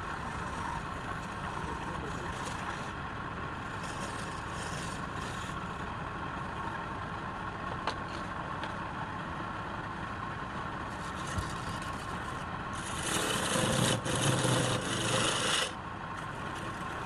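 Wood being turned on a running lathe: a steady rasping as the tool works the spinning piece, over a faint hum. About thirteen seconds in the cut grows louder for about three seconds, then drops back.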